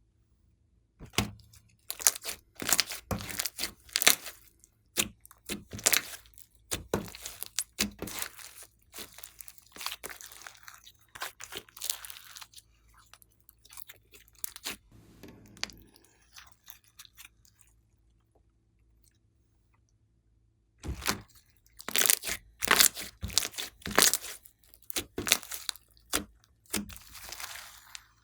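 Glossy slime mixed with clay being worked by hand: squeezed, pressed and stretched, with runs of crackling and popping. The sounds stop for a few seconds past the middle, then start again.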